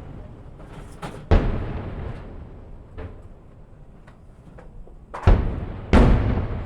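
Aerial fireworks shells bursting: three loud booms, one about a second and a half in and two more close together near the end, each with a long echoing tail, with a few fainter pops between them.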